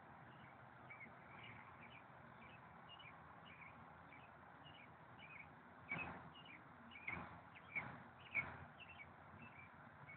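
Faint birds chirping in short repeated calls, with four sharp clicks or knocks close together from about six seconds in.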